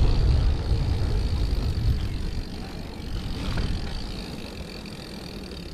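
Mountain bike riding down a dusty dirt track: wind rushing over the camera microphone and tyres rolling over loose dirt and gravel, loudest at the start and easing off as the bike reaches smooth asphalt and slows.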